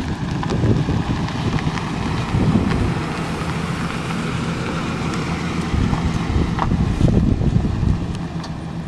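1999 GMC 3500 pickup's 5.7-litre V8 gas engine running at a steady idle, with wind buffeting the microphone.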